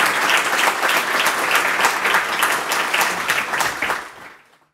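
Audience applauding, a dense patter of many hands clapping that fades out about four seconds in.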